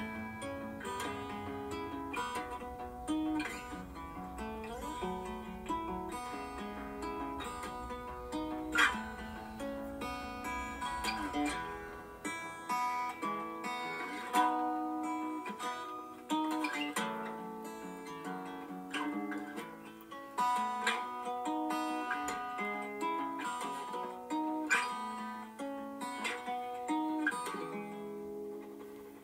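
Background music: acoustic guitar playing plucked notes with occasional strums.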